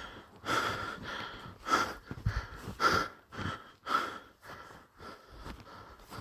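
A person breathing hard in short, regular noisy breaths, about one a second, as if exerted from wading through deep snow.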